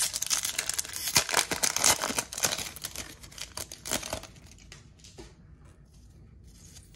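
Wrapper of a Topps baseball card pack crinkling as it is torn open and the cards are pulled out. The crinkling is busiest over the first four seconds, then dies down to a few faint rustles.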